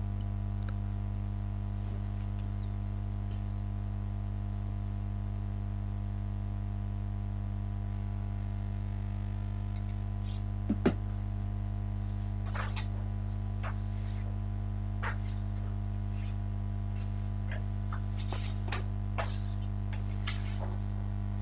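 Steady low electrical hum, like mains hum, with a few faint scattered clicks and ticks in the second half, the clearest a little past halfway.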